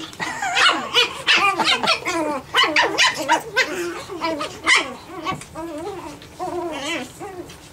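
Japanese Chin puppies yipping and barking in quick succession as they play-fight. The calls are loud for the first few seconds and grow softer toward the end.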